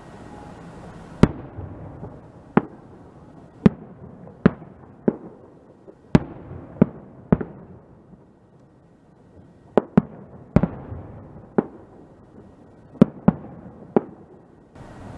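Aerial fireworks shells bursting: about fourteen sharp bangs at irregular intervals, each trailing off in an echo, with a lull a little past halfway.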